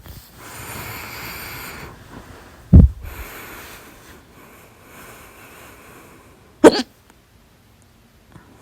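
Two loud hiccups about four seconds apart, the first deep and the second higher-pitched, with a breathy sound before the first.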